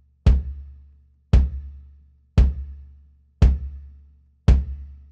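Kick drum of a 1970s Ludwig kit played alone with a felt beater, five single hits about a second apart, each a deep, short hit that dies away quickly. Its coated single-ply Remo Ambassador heads, felt strips under both heads and a porthole in the front head keep the sound short and dry.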